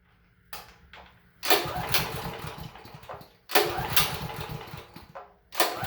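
Honda GX390 generator engine being cranked over several times without catching: three separate cranking attempts, each more than a second long, after a brief one near the start. This is a no-start in an engine that has sat for about a year.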